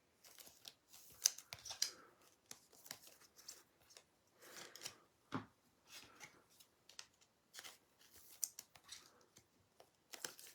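Trading cards being handled: scattered soft slides, flicks and rustles of cardboard cards, with a few sharper clicks.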